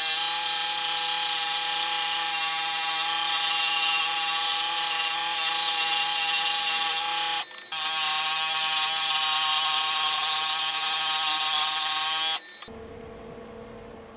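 Einhell DKS 405-16 scroll saw running, its blade cutting through an end-grain wooden board: a steady whine with hiss. It breaks off for a moment about seven and a half seconds in, then stops suddenly near the end, leaving a faint hum.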